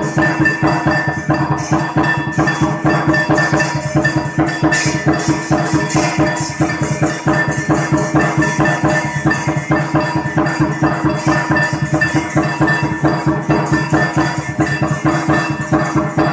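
Background music with a fast, even percussive beat over steady held tones.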